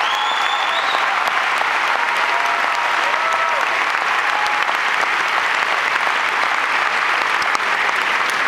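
Large audience applauding steadily, with a whistle near the start and a few cheers mixed in.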